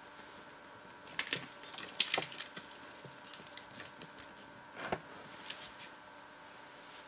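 A few sharp, hard clicks and knocks in short clusters, about a second in, two seconds in and again near five seconds, over a faint steady hum.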